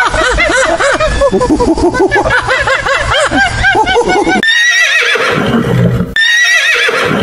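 A gibbon giving a fast run of rising-and-falling whooping calls. About four seconds in it cuts abruptly to a horse whinnying twice.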